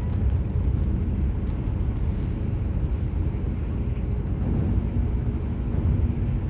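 Passenger ferry's engines running with a steady, low rumble.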